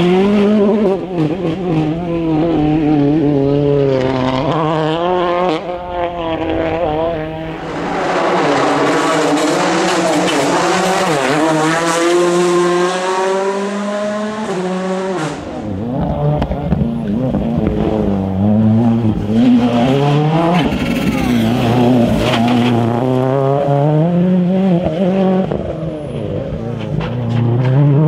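World Rally Cars' turbocharged engines revving hard through hairpins, one car after another, the pitch climbing and dropping with each gear change and lift. In the middle a rushing hiss joins the engine for several seconds.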